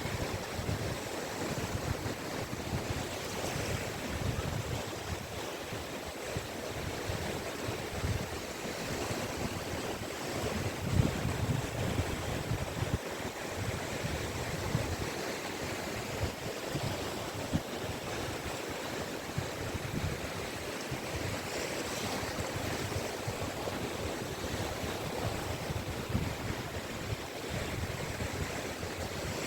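Caspian Sea surf washing onto the beach in a continuous noisy wash that swells and eases as waves break, with irregular low rumbling from wind on the microphone.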